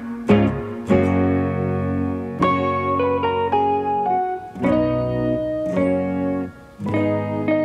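Background instrumental music: a melody stepping up and down over held chords, with a brief dip about six and a half seconds in.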